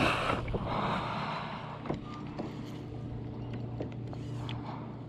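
Water splashing beside a fishing kayak for about the first second, then a low steady hum with a few light knocks.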